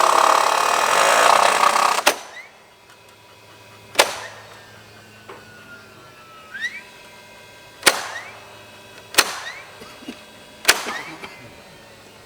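A loud, noisy power tool runs for about two seconds and stops abruptly. It is followed by four single sharp knocks spread over the next nine seconds, typical of hammering on timber framing.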